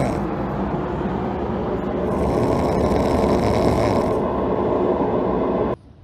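Sleeping puppy snoring: a loud, continuous, rough low rasp that cuts off suddenly near the end.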